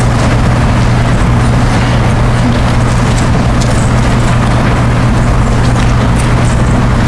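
Steady loud hiss over a constant low electrical hum.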